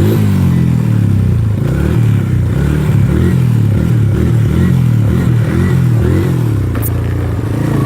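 Small off-road vehicle engine revving hard and easing off again and again as the rider hits the throttle for a jump and wheelie run, its pitch rising and falling in repeated surges.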